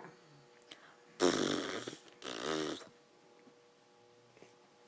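Baby coughing twice: a longer cough about a second in, then a shorter, voiced one right after it.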